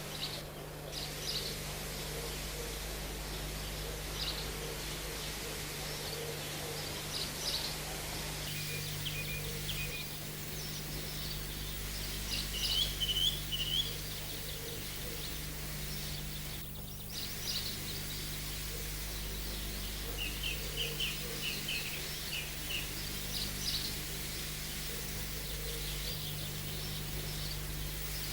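Birds chirping outdoors: short high-pitched chirps and brief trilled runs come scattered and irregular, over a steady low hum and background noise.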